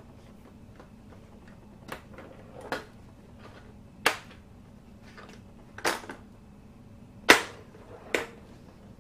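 Toy tabletop pinball's plastic flippers being worked with the side buttons: about six sharp plastic clacks at irregular intervals of one to two seconds, the loudest one near the end.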